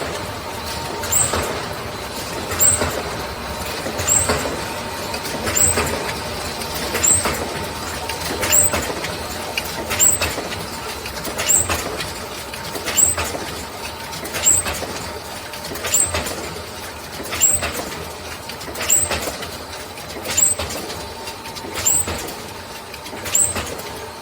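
Can-making production machinery running in a steady cycle, about once every one and a half seconds. Each cycle brings a clack and a short hiss of compressed air over a constant mechanical hum.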